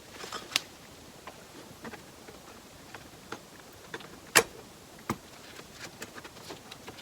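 Light, scattered clicks and clinks of automatic-transmission clutch plates and steel plates being handled and restacked, the sharpest clink a little over four seconds in.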